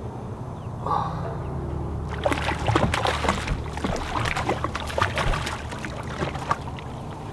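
A small jack hooked on a spinning rod splashing at the surface beside the boat while the reel is cranked, a run of irregular splashes and clicks starting about two seconds in. A steady low hum runs underneath.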